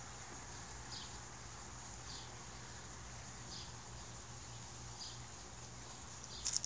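A cat eating from a stainless steel bowl, with a few sharp clicks near the end. Behind it a bird gives a short, high, falling chirp about every second and a half over a steady high hiss.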